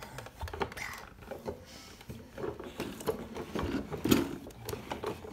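Irregular plastic clicks, knocks and rattles as a toddler handles and climbs on a plastic ride-on toy, with the loudest knock about four seconds in.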